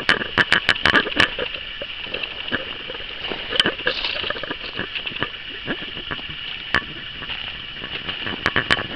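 Footsteps crunching over loose gravel: irregular clicks and crunches of stones, thickest in the first second and again near the end, over a steady high-pitched whine.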